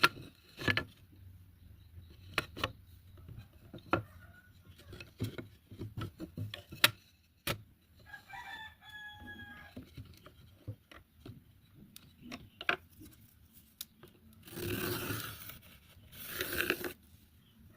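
Scattered sharp knocks and taps of hand work on wood, with two rough scraping strokes near the end. A chicken clucks in the background about halfway through.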